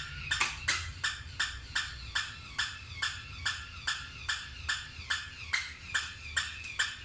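Battery-operated toy dog running: a steady series of sharp, ringing pings, a little under three a second, over a low hum.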